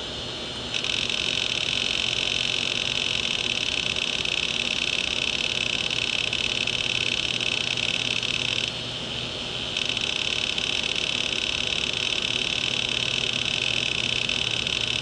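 Opened hard disk drive's read/write head arm chattering rapidly as it seeks while a folder is deleted, a steady high buzzing over the whir of the spinning platter. It starts about a second in, drops out for about a second near the middle, then resumes.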